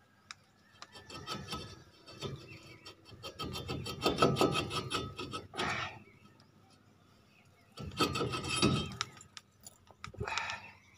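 A rusty Ford Ranger front brake rotor being worked back and forth by hand and pulled off its hub: metal scraping and grating in irregular bursts with small knocks and clicks.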